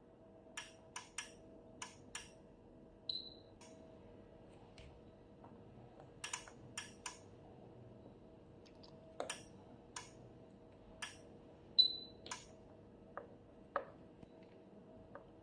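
Bench digital multimeter in probe hold mode giving two short high beeps, about three seconds in and again near twelve seconds, each the sign that it has found a stable reading and recorded it. Between and around them comes a scattered run of sharp clicks.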